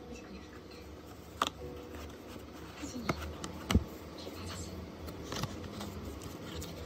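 Cardboard takeout box and its perforated parchment liner being handled: paper rustling with a few sharp clicks and knocks, the loudest a thud just under four seconds in.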